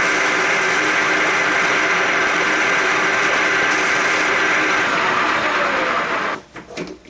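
Metal lathe turning a forming die, running steadily with several held whining tones under the noise of the cut. The sound cuts off sharply about six seconds in, followed by a few light knocks.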